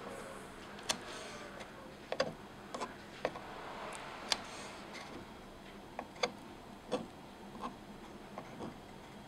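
Tiny knife tapping on a miniature wooden cutting board as thin slices of meat are cut: about a dozen small, sharp taps at an uneven pace.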